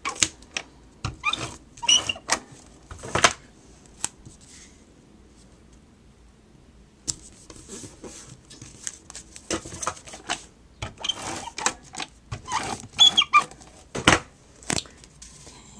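An adhesive applicator drawn across the back of photo mats in short squeaky, scratchy strokes and clicks, mixed with the handling of card and paper. The sounds come in two bursts with a lull of a few seconds between them.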